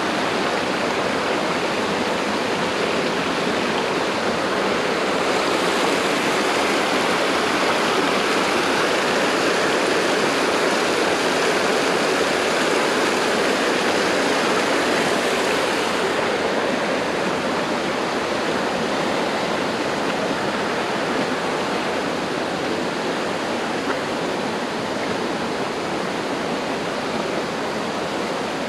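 Running water rushing steadily, like a stream or small waterfall close by, an even hiss that eases slightly about halfway through.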